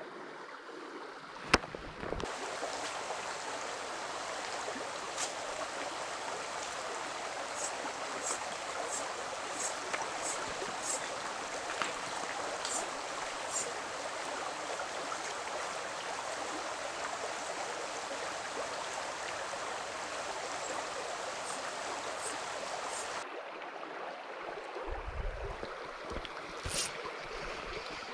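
Shallow, rocky brook running over cobbles and small rapids: a steady rush of water, louder through the middle. A sharp click about a second and a half in, and a few low handling bumps near the end.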